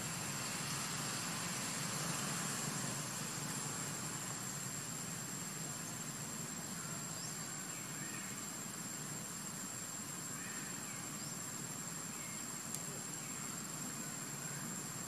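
Steady outdoor background noise with a constant high-pitched whine, and a few faint bird chirps in the second half.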